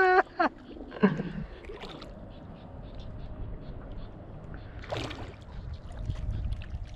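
A hooked bass being played in to the bank, with faint splashing and sloshing at the water's surface and a short splash about five seconds in. A held shout cuts off right at the start, and low wind and handling rumble on the microphone rises near the end.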